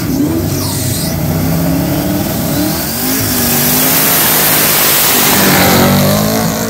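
Drag car doing a burnout: the engine revs hard while the rear tyres spin and smoke, with the engine note climbing and the noise of the spinning tyres building to its loudest near the end.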